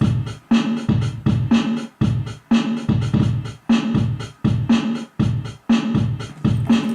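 A looped drum beat: a heavy, low hit about twice a second, each carrying a short pitched thud.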